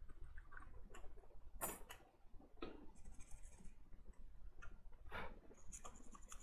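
Scattered light clicks and taps as a power-supply circuit board and metal tweezers are handled on a work mat.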